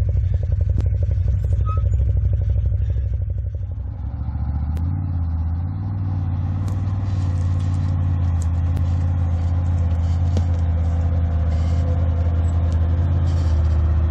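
Off-road buggy engine running steadily, its note changing about four seconds in, with light rattling clicks over it.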